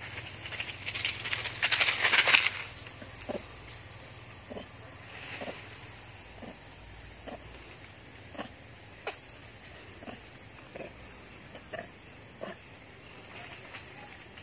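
Steady high-pitched drone of a forest insect chorus, with a loud burst of rustling and crackling about one to two seconds in. After that, short low pips repeat about once a second over the drone.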